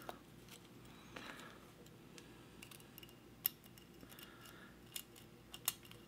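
Faint scraping of a steel hook pick working the pin stack inside a Kwikset KW1 pin-tumbler lock cylinder held under tension, with a few sharp little clicks as pins are pushed up and set.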